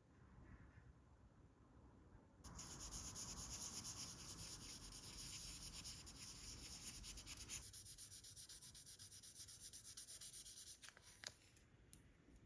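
Faint, fast back-and-forth rubbing of sandpaper on a small model car part, starting about two and a half seconds in, easing off after about seven seconds and stopping around eleven seconds. A couple of light clicks follow near the end.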